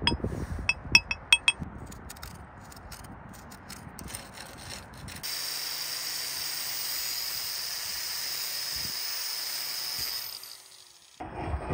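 A rusty steel rod clinks and scrapes against a flat steel bar. About five seconds in, an electric angle grinder starts running steadily on the rod, grinding off the rust, and it winds down near the end.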